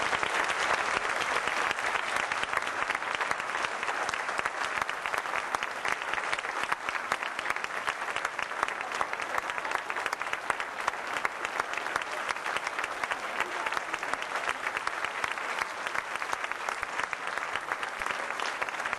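A crowd applauding: dense, continuous clapping that eases off a little as it goes on, in greeting to a newly announced prom king and queen.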